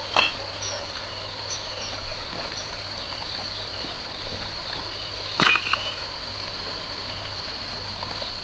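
Steady high insect drone, with a few faint bird chirps and two sharp knocks, one right at the start and one about five and a half seconds in.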